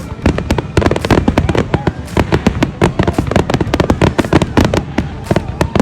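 Fireworks going off in a rapid, dense series of sharp bangs and crackles, several a second.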